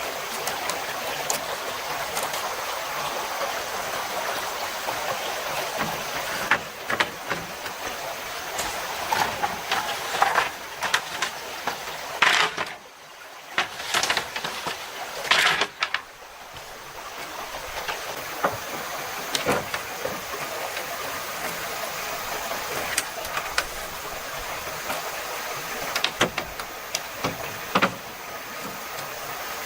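A stream flowing steadily, with scattered sharp knocks and clicks over it.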